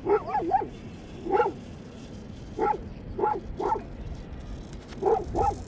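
A dog barking repeatedly in short, yelping barks, singly and in quick pairs, about eight in all.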